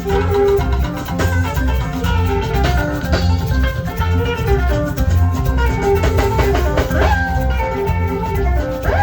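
Saxophone playing a melody over a backing track with a steady drum and bass beat, with a couple of quick upward swoops in pitch.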